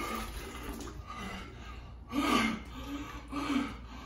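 Water from a bottle splashing over a man's face into a plastic bucket, then loud pained gasps and groans about two seconds in and again a second later, from a mouth burning on extremely hot jerky.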